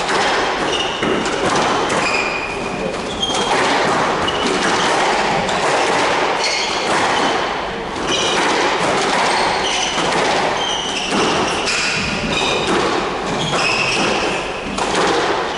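Squash balls thudding against court walls and rubber-soled court shoes squeaking on a wooden floor, irregular and overlapping, in a reverberant squash hall.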